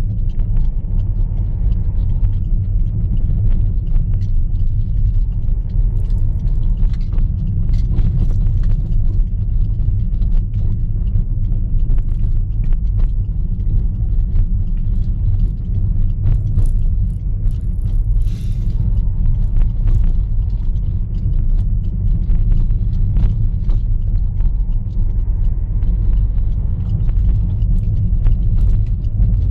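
Steady low rumble of a car driving, engine and road noise heard from inside the cabin, with faint scattered clicks and rattles.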